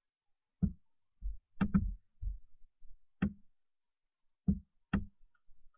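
Computer mouse clicking: about eight short, sharp clicks at uneven intervals, some in quick pairs.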